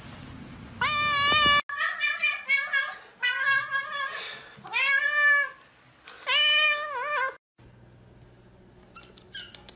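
Tabby cat meowing loudly: about five drawn-out calls, each rising and falling in pitch.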